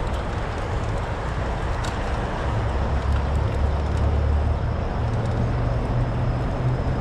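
Wind buffeting the camera's microphone and tyres rolling on a paved path while a bicycle is ridden: a steady rumbling noise that grows a little stronger about three seconds in, with a few faint ticks.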